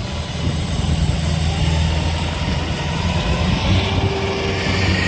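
Diesel engine of a tracked farm machine idling steadily with a low, even hum.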